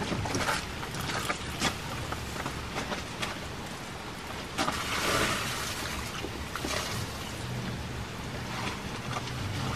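Rainwater pooled on a camping tarp being pushed off from below, spattering and dripping to the ground, with a louder rush of pouring water about five seconds in.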